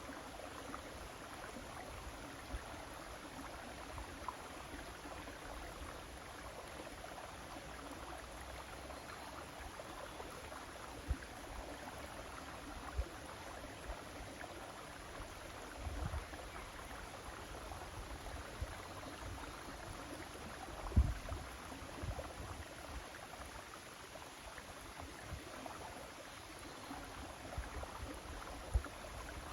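River water flowing steadily, an even rushing murmur. A few short, low bumps break through now and then, the loudest about two-thirds of the way in.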